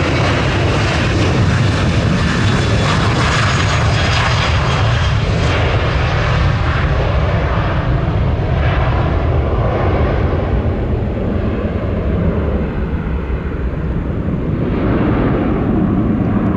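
Jet airliner's engines running loud: a steady low rumble with a hiss on top that gradually thins out, then swells again slightly near the end.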